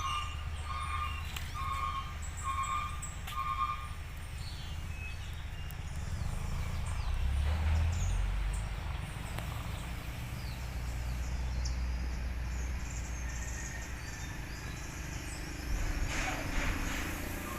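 Low engine rumble of a vehicle that swells about halfway through. For the first few seconds a beeper of one steady pitch sounds about once every 0.7 s, and birds chirp faintly.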